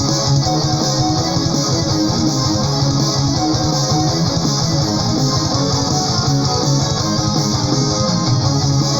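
Neoclassical melodic metal recording playing, with electric guitars and bass guitar.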